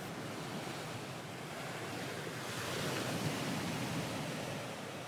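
Recorded ocean waves washing on a shore: a steady rush of surf that swells slightly about halfway through and then eases back.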